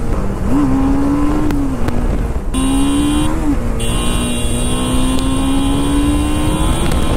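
Motorcycle engine running on the move, its note holding, dipping, then slowly rising with the throttle. The sound changes abruptly about two and a half seconds in.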